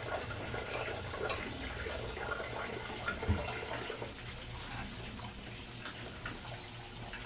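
Breaded chicken pieces frying in oil in a pan on a gas burner: a steady sizzle.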